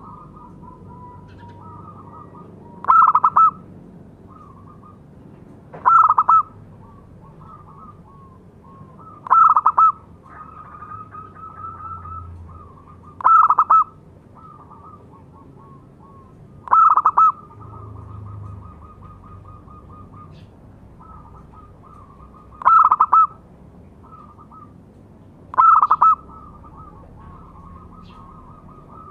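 Zebra dove (local perkutut) singing: seven loud cooing phrases, each well under a second and repeated every three to four seconds or so.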